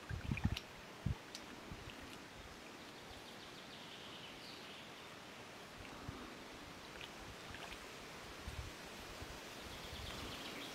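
Faint steady outdoor pond ambience, a soft hiss with scattered light high-pitched ticks. A few low thumps come in the first second.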